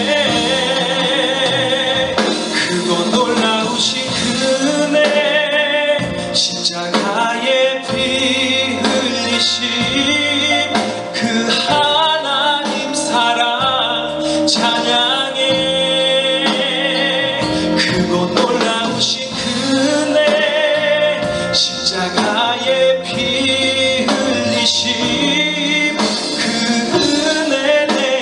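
A man singing a Korean worship song through a handheld microphone over a recorded instrumental backing track.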